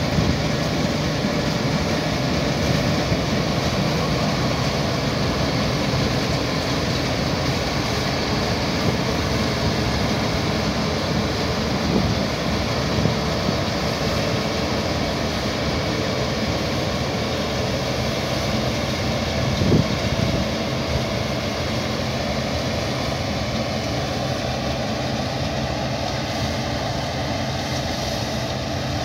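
Claas Dominator 88 combine harvester running steadily under load as it cuts and threshes grain, a dense mechanical roar of engine and threshing gear with a couple of brief knocks partway through.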